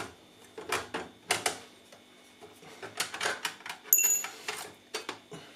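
Irregular metal clicks and knocks as a small supporting bracket is worked loose and lifted out of a Yamaha AS500 amplifier's chassis. About four seconds in, a small metal part gives a brief bright ring.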